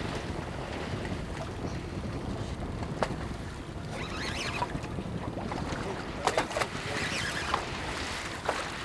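Steady wind noise on the microphone with sea sounds around a small boat, broken by a few sharp clicks or knocks, the loudest a quick pair about six seconds in.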